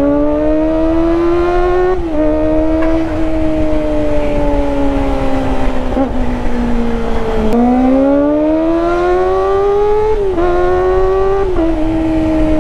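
Kawasaki ZX-25R's inline-four engine, through an IXIL full exhaust, revving high under way. It climbs in pitch, shifts up about two seconds in, then eases off for a few seconds. It then pulls hard again with two more quick upshifts near the end.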